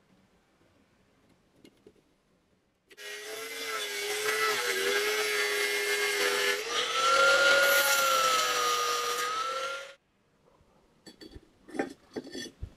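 Angle grinder with a cut-off disc cutting through steel angle iron, throwing sparks: it starts abruptly about three seconds in, runs with a steady whine that shifts higher partway through the cut, and stops abruptly about seven seconds later. A few light metallic clinks follow near the end as the cut pieces are handled.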